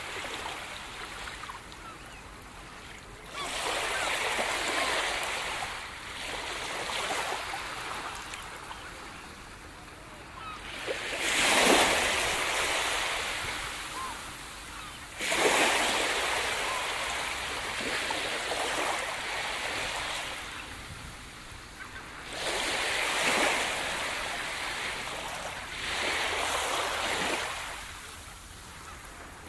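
Sea waves breaking and washing up on a beach. The hiss of surf swells and falls back in surges a few seconds apart.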